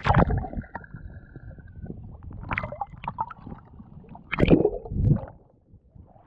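Water splashing and gurgling around a snorkeler's head-mounted camera as it dips under the surface and comes back up, with a loud splash at the start and another about four and a half seconds in. A thin steady whistle runs through the first two seconds.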